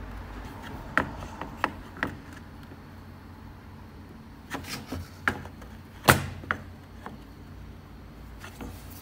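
Scattered clicks and knocks of a 32 mm spanner working on a plastic diesel fuel filter as its sensor is tightened onto it. They come in two clusters, the loudest knock about six seconds in.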